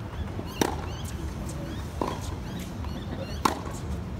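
Tennis balls struck by rackets in a practice rally: three sharp hits about a second and a half apart, the first and last the loudest.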